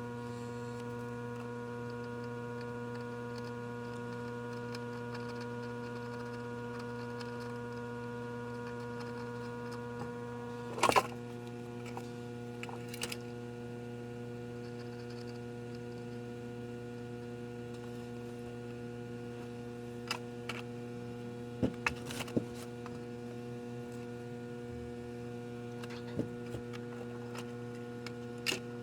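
Steady electrical hum from bench equipment, with sharp clicks and knocks from tools or parts being handled. The loudest knock comes about a third of the way in, where the hum's higher tones change; a few more clicks follow later.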